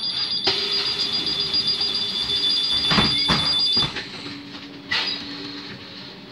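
Škoda 31Tr trolleybus door-closing warning beeper: a rapid high-pitched beeping that stops after about four seconds as the doors shut with a couple of knocks. Then a low electric hum starts as the trolleybus moves off, with a click about five seconds in.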